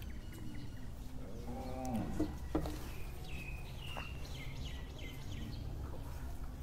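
A cow moos once about a second and a half in, a short call that drops in pitch at the end. Small birds chirp a few times just after it, over a steady low hum.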